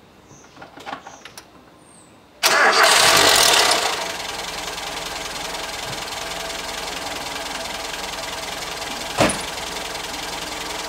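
Toyota 4K pushrod four-cylinder engine cold-started: after a few faint clicks it cranks and catches about two seconds in with a loud burst lasting over a second, then settles into steady idling, its valve clearances freshly set. One sharp knock about nine seconds in.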